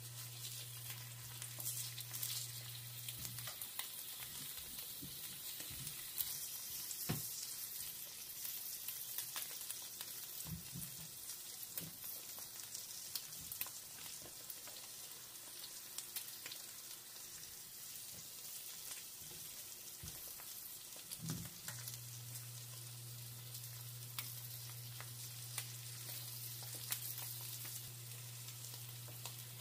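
Whole eggs sizzling as they fry in a pan, a steady hiss with many small pops, and a silicone spatula now and then nudging and scraping against the pan. A low steady hum cuts out about three seconds in and comes back about twenty-two seconds in.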